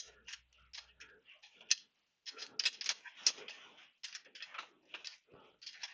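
Small metal parts of a folding-bike frame hinge latch clicking and ticking irregularly as the hex toggle pin is wound by hand into the latch barrel. The clicks are sparse at first and come faster after about two seconds.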